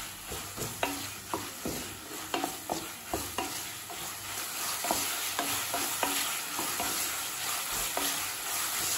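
Chopped vegetables sizzling in hot oil in a non-stick pan while a wooden spatula stirs them, with frequent light knocks and scrapes of the spatula against the pan that thin out in the last few seconds, leaving the steady sizzle.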